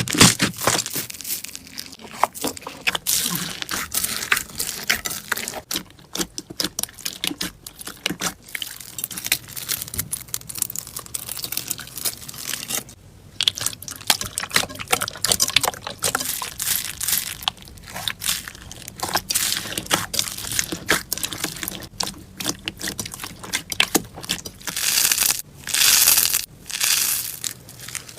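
Slime being squeezed and worked by hand, giving a dense run of irregular crackles and small pops, with a few longer rustling swells near the end.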